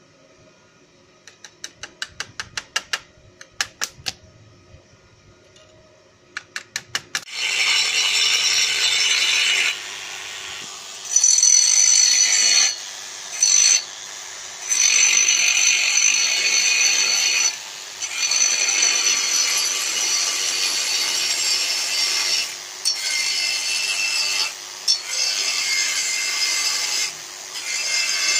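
Two runs of rapid clicks in the first few seconds, then an angle grinder's cutting disc biting into steel: a loud, high-pitched grinding that falls back to the motor's quieter free-running sound in several short breaks as the disc is eased off the work.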